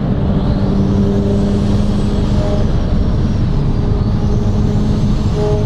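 Car engine running at a steady pitch under heavy road and wind noise, its tone breaking off briefly about two and a half seconds in and again near the end.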